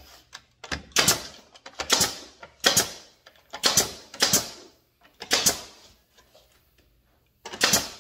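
Pneumatic nailer shooting nails into cedar fence pickets. About seven or eight sharp shots, each with a short hiss of exhaust air, come roughly one a second, with a pause of about two seconds before a quick pair near the end.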